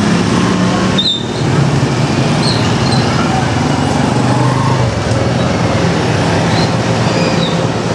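Road traffic noise: vehicle engines running under a dense, steady wash of street noise, with a few short high chirps.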